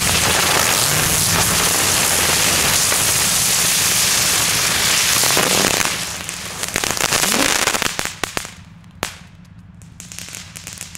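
Several Xplode Storm crackling ground spinners burning at once, a loud, dense crackling. After about six seconds it thins to scattered crackles and a few sharp pops, dying away near the end as the spinners burn out.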